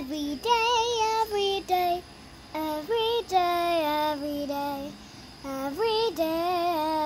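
A young girl singing unaccompanied: several phrases of held, wavering notes, with two short pauses between them.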